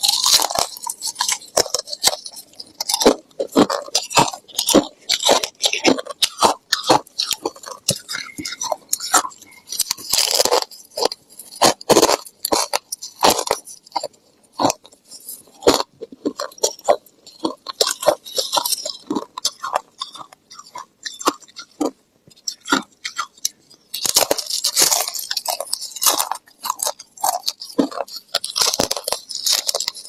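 Thick freezer frost crunching as it is bitten and chewed, in many sharp, irregular crunches with short gaps between, mixed with the crunch of gloved hands scooping the packed frost.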